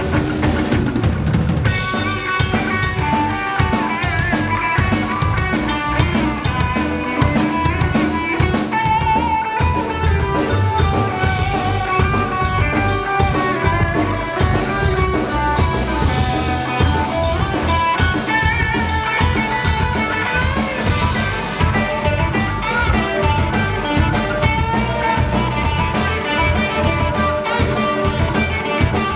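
Live rock band playing loudly: electric guitar over a full drum kit.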